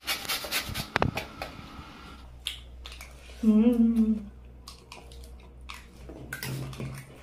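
Eating sounds with repeated sharp clicks of a utensil on a dish, and a short hummed "mmm" about three and a half seconds in, the loudest sound, with a softer hum near the end.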